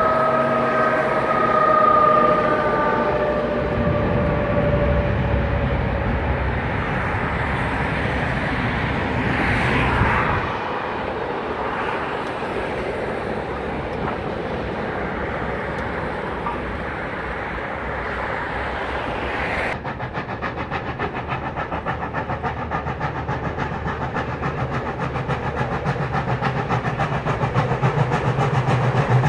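A train's horn or whistle sounds one long tone that sinks slowly in pitch while the train rumbles across a bridge. Then the sound changes abruptly to 3642, a 4-6-0 steam locomotive, approaching under power, its rapid exhaust beats growing louder.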